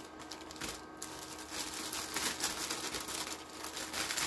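Plastic packaging crinkling steadily as it is handled, with fine crackles throughout.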